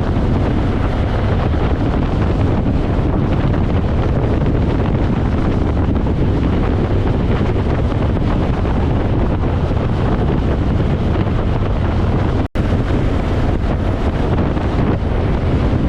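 Strong gusty wind blasting over the microphone of a motorcycle at speed, a loud, steady rush of noise heaviest in the low end. The sound drops out for a split second about twelve and a half seconds in.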